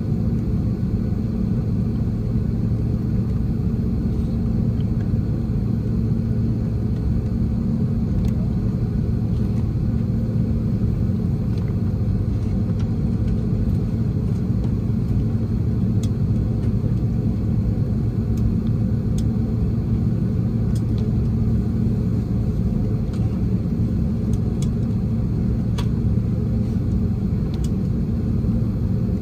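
Steady low cabin rumble of an Airbus A330-300 with its Pratt & Whitney PW4000 engines running, with a few faint clicks now and then.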